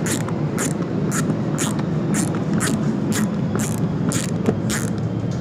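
Ratcheting screwdriver driving a wood screw by hand, its ratchet pawl giving a short burst of clicks on each return stroke, about twice a second, over a steady low background rumble.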